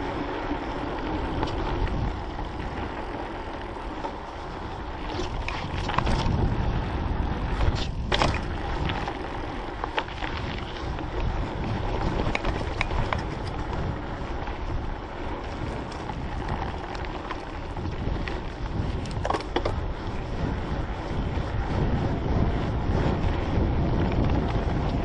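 Mountain bike riding over a dirt trail: steady wind buffeting the action-camera microphone and tyre noise, with sharp rattles and knocks from the bike over bumps, the loudest about six and eight seconds in.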